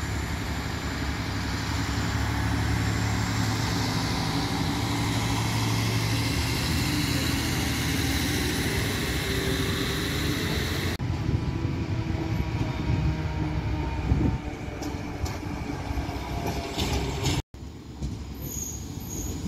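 Diesel railcars running at a railway station: a steady engine rumble with a low hum. The sound changes abruptly about eleven seconds in and again near the end, each time to a quieter rumble.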